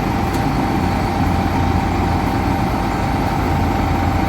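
Coach engine running, a steady low rumble.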